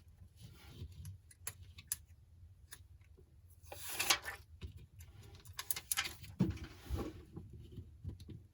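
Hands handling an iPhone and a glass screen protector on a work surface: scattered small clicks and taps, with two short rustling scrapes about four and six seconds in.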